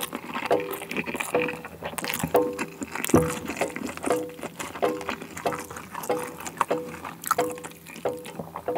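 Thick red dakgalbi sauce bubbling in a hot grill pan, popping with a short low 'tuk' about twice a second. Close-miked chewing sounds run alongside.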